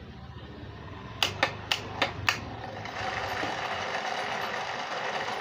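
Several quick clicks of the electric wire-rope hoist's pendant switch, then the hoist's motor and gearbox run with a steady mechanical whir as the newly wired switch is tested.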